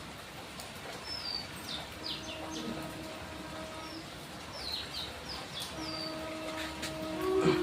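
Small birds chirping, many short falling calls one after another, over a steady low hum that comes and goes.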